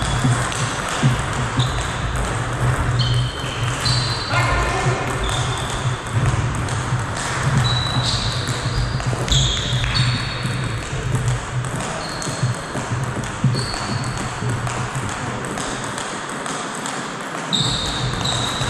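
Table tennis play in a sports hall: short high pings and clicks of the ball off bats and table, with brief squeaks, some sliding in pitch, scattered through, over a steady low hum that drops away shortly before the end.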